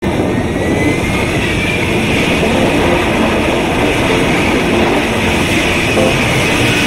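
F-35B's F135 jet engine and shaft-driven lift fan running at vertical-takeoff power: a loud, steady rushing noise with a high whine wavering slightly on top, as the jet lifts straight off the ground.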